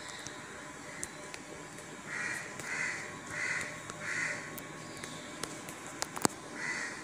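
A bird calling outside: four short, harsh calls in quick succession starting about two seconds in. A few sharp clicks follow near the end, the loudest about six seconds in.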